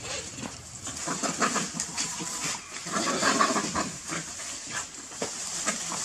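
A dog and a monkey fighting: animal cries and scuffling in irregular bursts, loudest about three seconds in.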